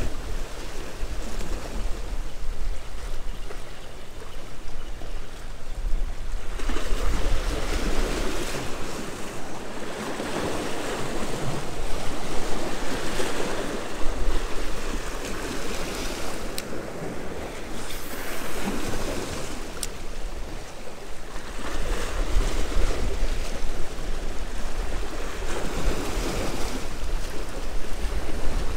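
Sea waves washing and breaking against jetty rocks, with wind buffeting the microphone. The surf swells and eases every few seconds.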